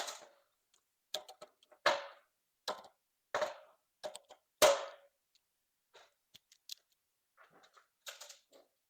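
Scissor rivet gun being worked to set rivets in the mast: a string of sharp clicks and snaps less than a second apart, the loudest about four and a half seconds in, followed by a few fainter clicks.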